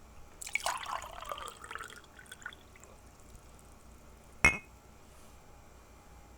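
Water poured into a glass: a splashing, trickling pour lasting about a second and a half. About three seconds later comes a single sharp, ringing glassy plink, louder than the pour.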